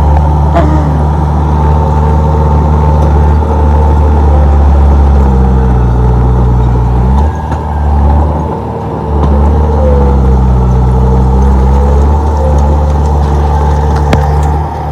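Komatsu D31P bulldozer's diesel engine running steadily, its pitch sagging twice and recovering, with brief drops in level about 7 and 8.5 seconds in.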